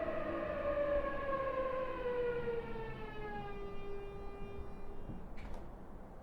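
E233 series electric train's inverter and traction motors whining in a falling, siren-like tone as the train brakes for a station stop. The whine levels off and cuts out about five seconds in, followed by a brief hiss.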